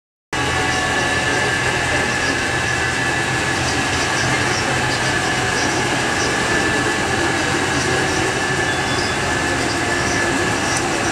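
Steady rumble and hum of commercial laundromat washers and dryers running, with a faint high steady tone over it.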